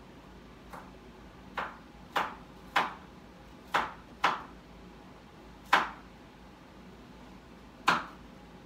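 A series of about eight sharp taps or knocks at uneven intervals, each with a brief ring.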